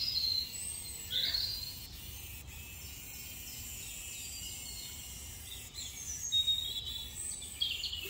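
Birds chirping in short calls, scattered over a faint steady background hiss.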